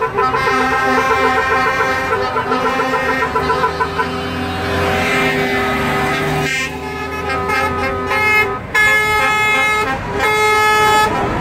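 Truck air horns sounding as coal trucks pull away: a rapidly pulsing horn for the first few seconds, a swell of heavy diesel engine noise around the middle, then long held horn blasts broken by short gaps.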